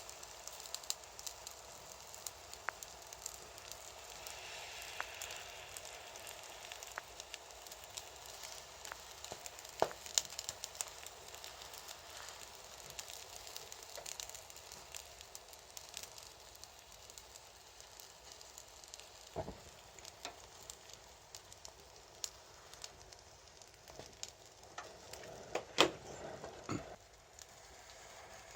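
Beef sizzling on a small grill over burning ignition charcoal, with steady fine crackling and scattered pops. A few louder sharp clicks stand out, one about ten seconds in and a cluster near the end.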